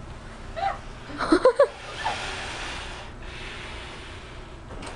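A person blowing long, steady breaths into the waistband of swish-swish pants to inflate them: an airy hiss starting about two seconds in, with a short break just after three seconds before a second long blow. A brief voice sound about a second in is the loudest part.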